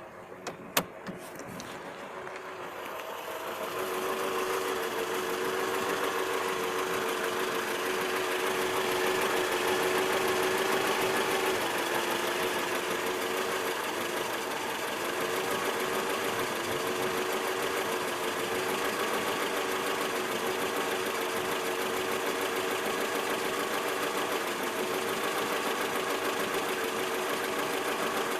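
ZMZ-402 inline-four petrol engine running with a rapid, steady knock. The knock comes from play between the piston pins and connecting rods in all four cylinders. A few sharp clicks sound in the first second, and the engine grows louder over the next few seconds.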